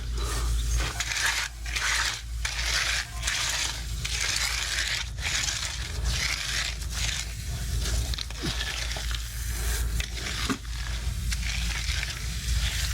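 Garden hose spraying water onto concrete-covered tools, a steady hissing spray that breaks off briefly every half-second or so as the stream moves across them, over a low steady rumble.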